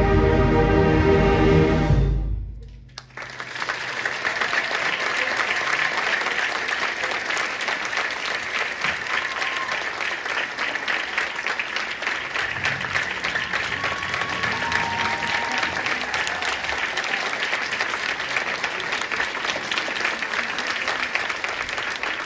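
A concert band's wind and brass instruments hold a loud final chord that cuts off about two and a half seconds in. After a short silence, the audience applauds steadily for the rest of the time.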